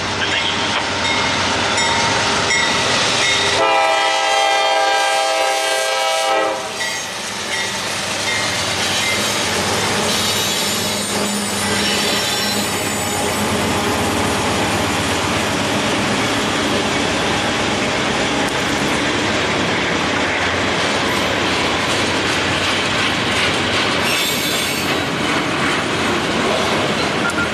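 Norfolk Southern freight train passing close by. The lead diesel locomotive sounds its air horn in one long blast about four seconds in, then the freight cars roll past with steady wheel noise and clickety-clack.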